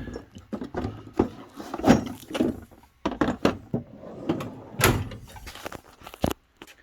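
Metal tool cart drawers and tools being handled: a series of uneven knocks and clatter, with sharp bangs near the start, about five seconds in and just past six seconds, as of a drawer being shut.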